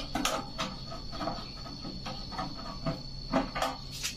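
Screwdriver turning out a screw from a microwave oven's sheet-steel back cover: irregular metallic clicks and scrapes of the tip in the screw head and against the casing.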